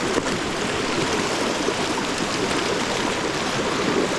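Glacial meltwater river rushing steadily among rocks.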